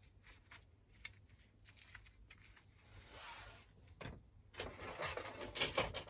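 Lawnmower recoil starter spring and its parts being handled: scattered small clicks and scrapes, then a busier run of clicking and rattling over the last second and a half.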